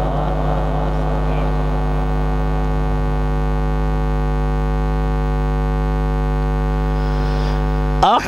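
A long, steady held note from a Quran reciter's voice through a public-address system, with a constant low mains hum underneath. It stops suddenly about eight seconds in as a new melodic phrase begins.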